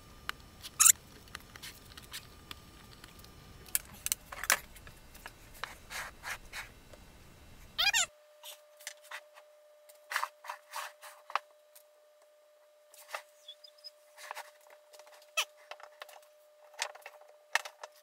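Thin wooden model parts being handled and pressed together on a workbench, sped up: scattered quick clicks, taps and rubbing. About eight seconds in the background changes abruptly and a faint steady tone runs under the taps.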